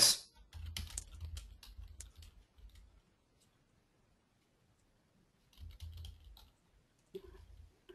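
Computer keyboard typing in short runs of keystrokes: one run for about two and a half seconds, then a pause, then two shorter runs near the end.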